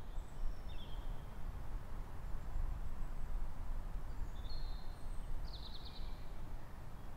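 Outdoor birdsong ambience: several birds give scattered short chirps and high whistles, with a quick trill about five and a half seconds in, over a steady low rumble.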